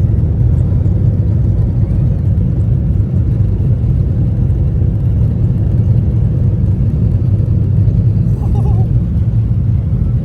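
Airliner jet engines at takeoff power during the takeoff roll, heard inside the cabin as a loud, steady low rumble.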